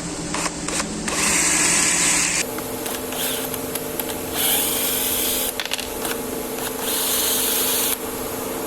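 Three bursts of hiss, each about a second long, over a steady machine hum, with a few sharp clicks near the start.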